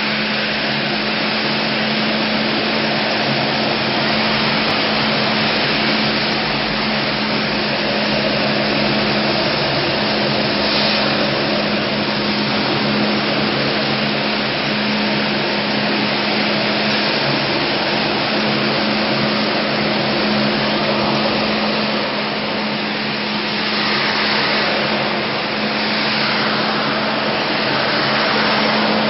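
Ride-on floor scrubber running. Its vacuum motor gives a steady loud whir with a low hum underneath.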